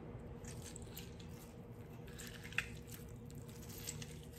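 A lemon half squeezed by hand over a bowl of marinating chicken: faint squishing of the fruit as the juice is pressed out, with one sharp click about two and a half seconds in.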